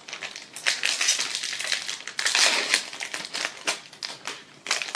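Crinkling and crackling of an opened foil Pokémon TCG booster pack wrapper as it is handled, with quick sharp crackles throughout.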